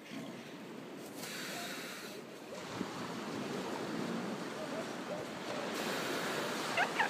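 Steady wash of surf with wind buffeting the microphone, and a few brief high chirps near the end.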